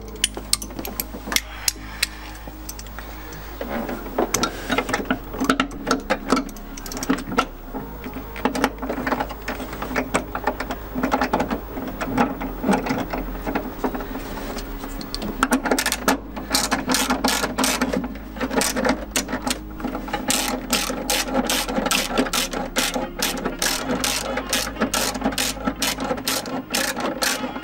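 Hand ratchet with a socket extension clicking as the battery hold-down brace bolts are turned. The clicks come in irregular bursts at first, then in rapid, even runs over the second half.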